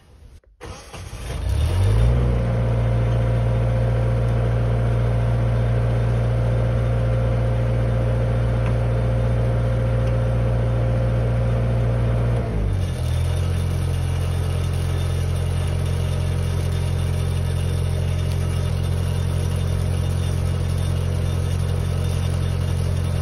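Engine-driven welding machine starting a second or so in and running at a high, steady speed, then dropping to a slower idle about halfway through and running on steadily.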